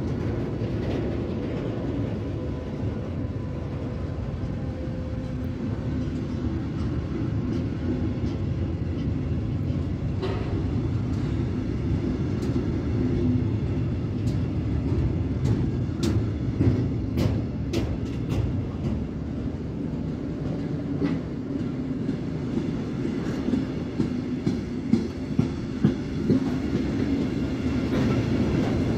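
A long mixed freight train of hopper, flat and tank wagons rolling past: a steady low rumble of wagon wheels on the rails, with clicks and clacks as the wheels run over the rail joints. The sharp knocks come in clusters in the second half.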